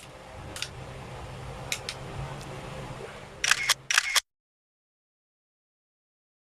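A few light, sharp clicks and taps of small shock absorber parts being handled over a faint steady hum, with a quick run of clicks near the end. The sound then cuts to dead silence about four seconds in.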